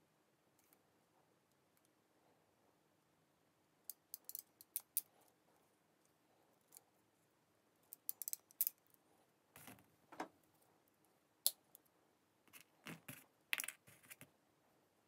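Ratcheting crimping tool clicking in short bursts as it crimps small cable terminals onto a capacitor's leads, starting about four seconds in, with a few low handling knocks among the clicks.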